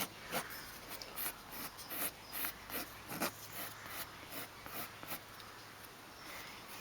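Leather filler paste being skimmed over a tear in a leather seat bolster, a light scraping in short strokes about two or three a second that stop near the end.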